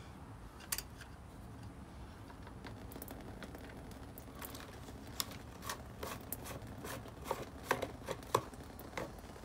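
Gasoline dripping slowly from the opened fuel valve of a Honda GCV190 engine into a plastic bucket: a scattering of small drip ticks, sparse at first and more frequent in the second half. The slow drip shows fuel getting through the line, but only slowly.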